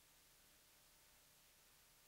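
Near silence: only a faint, steady hiss of the recording's noise floor, with the audio volume left turned off.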